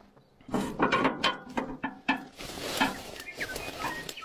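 Metal knocks and clicks of a long bar being fitted and levered against an old tractor engine to turn it over by hand, followed by a rasping scrape.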